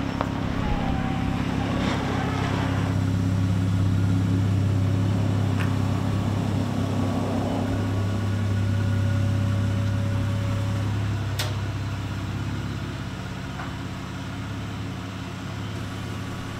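A 2018 Jeep JL Wrangler Rubicon Unlimited driving slowly past and into a garage. Its engine is a steady low hum that grows louder as it passes and eases off over the last few seconds as it pulls inside.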